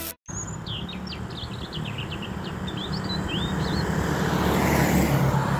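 Small motorcycle engine running as it approaches, growing steadily louder, with a bird chirping rapidly over it during the first few seconds.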